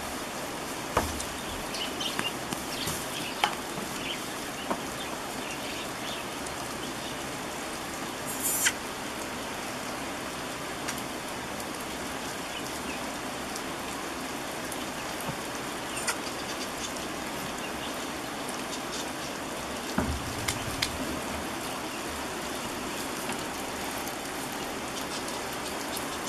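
Steady rain falling, with a few light knocks and clicks now and then and a low thump about twenty seconds in.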